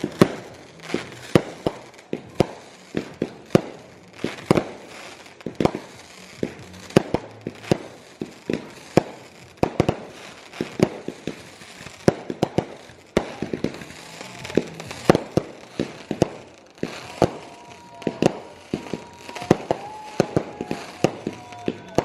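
Fireworks going off in a rapid, irregular string of sharp bangs, several a second, with a few held tones in the last few seconds.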